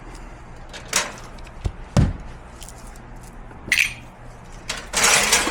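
Knocks and clatter as the metal seating plate of a power wheelchair is worked loose and taken off: a few light knocks, a heavy thump about two seconds in, a sharp clink near four seconds, then a scraping rub near the end.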